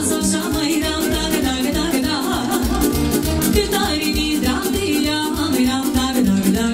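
Live Romanian folk dance music from a band with violin and saxophone, with singing over a steady fast beat.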